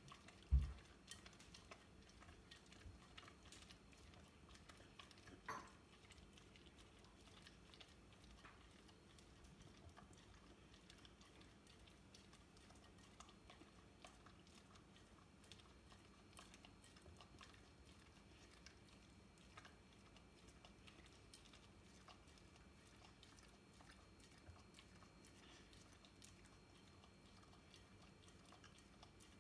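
A whippet licking and chewing sticky peanut butter, a faint run of small wet mouth and tongue clicks. A single low thump comes about half a second in.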